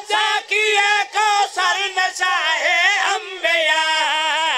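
Men singing a Punjabi devotional qasida over a microphone and loudspeakers, unaccompanied, in long wavering notes broken by short breaths.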